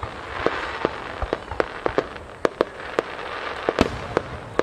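Aerial firework shells bursting in a rapid barrage: about a dozen sharp bangs at uneven intervals, with a steady hiss and crackle between them.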